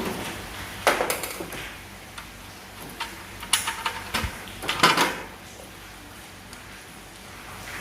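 Scattered clicks and clattering knocks of hard objects being handled, in short bursts about one second, three and a half seconds and five seconds in.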